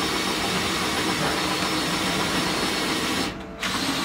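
A motor running steadily with a whirring hiss. It drops out briefly about three seconds in, then carries on.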